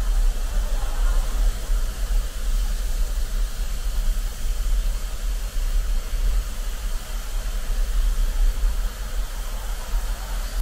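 Steady city road traffic: a constant low rumble of cars under an even hiss, with no single vehicle standing out.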